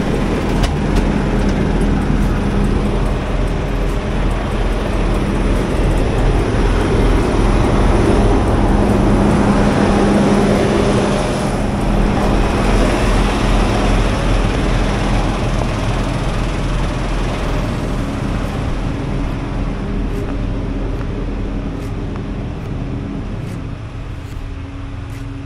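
Steady vehicle and traffic noise with a low engine hum. It grows louder toward the middle and slowly fades near the end.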